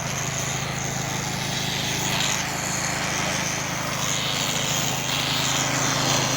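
A machine's engine running steadily at an even speed, with a hiss over it.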